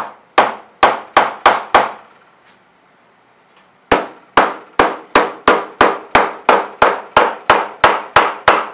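Plastic mallet hammer-forming the edge flange of a 0.025-inch aluminium wing rib clamped between form blocks. A quick run of six blows, a pause of about two seconds, then a steady run of blows about three a second, each a sharp knock with a short ring.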